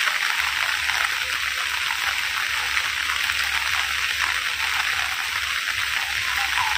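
Heavy rain falling, a steady, even hiss of rain.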